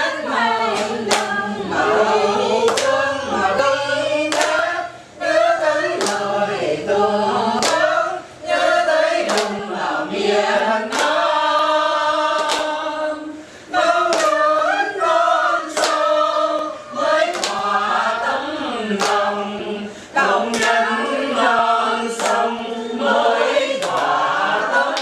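A group of men and women singing a Vietnamese song together without instruments, clapping their hands on the beat about once a second.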